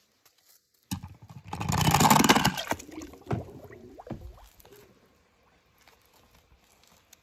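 Die-cast toy school bus rattling down a ramp of ridged popsicle sticks, a dense clatter of about a second, then a few knocks and a splash as it drops into a tub of water.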